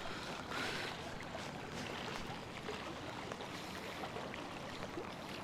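Steady rushing of river current, an even wash of water noise without clear pitch.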